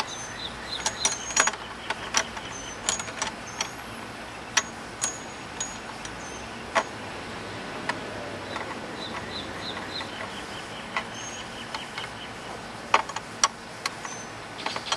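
Irregular sharp metal clicks and clinks of a wrench on the transmission cooler line fittings at the radiator, some in quick clusters with a brief ringing tone. The lines are being loosened so the radiator can come out.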